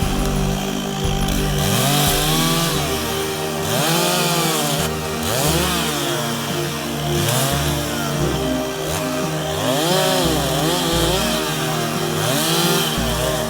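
Chainsaw revving up and down again and again, its pitch rising and falling every second or two, with short bursts of cutting noise as it goes through wood, typical of limbing branches.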